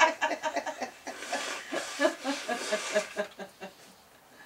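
Women laughing in short chuckles that die away, with a breathy, hissing stretch about a second in as one of them, just after a sneeze, blows her nose into a tissue.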